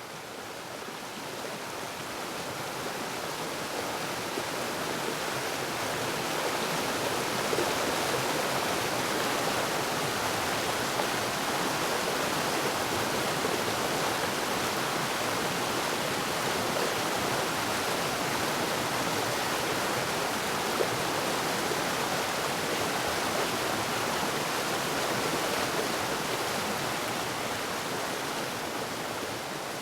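Waterfall, falling water rushing steadily, fading in over the first few seconds and fading out near the end.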